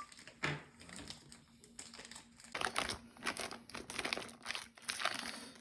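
Foil-lined Chapagetti instant-noodle bag crinkling as chopsticks stir the softened noodles inside it, thickening from about two and a half seconds in; before that, only a few light ticks and rustles.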